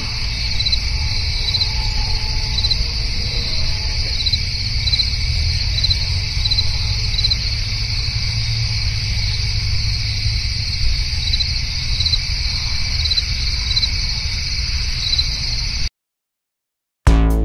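Crickets chirping: a steady high trill with a regular chirp about once a second, over a low rumble. It cuts off suddenly near the end.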